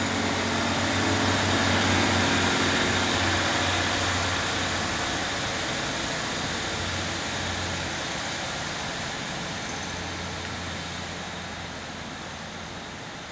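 Class 150 Sprinter diesel multiple unit pulling away under power, its underfloor Cummins diesel engines running with a steady low drone. The sound is loudest about two seconds in, then fades steadily as the train draws away.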